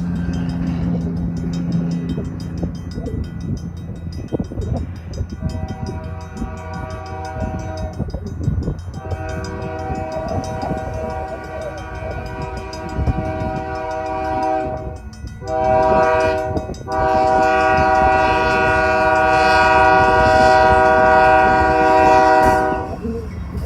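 Union Pacific AC44CWCTE diesel locomotive's air horn sounding a chord in a long, long, short, long pattern, the grade-crossing signal, over the low rumble of the locomotive and train. The last long blast is the loudest.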